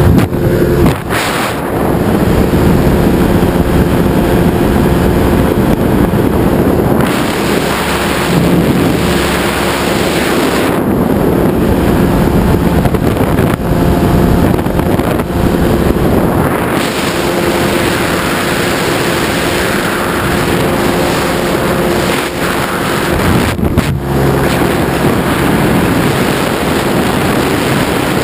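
Ultralight trike's pusher engine and propeller running steadily in flight, with heavy wind rushing over the microphone.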